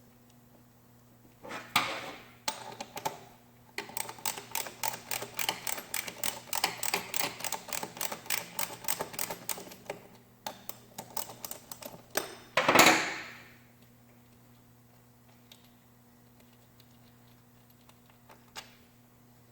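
A fast run of light taps, about five a second for some six seconds, with a shorter cluster of taps before it and one louder noisy burst after it.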